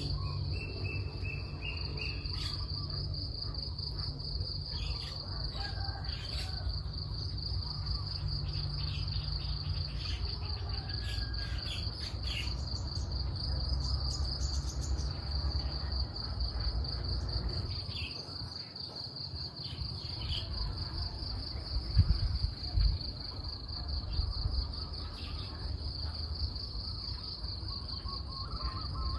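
Tropical forest ambience: insects keep up a continuous high, pulsing trill while birds give scattered short chirps and whistles. A low rumble runs underneath, and there are a couple of sudden thumps about two-thirds of the way through.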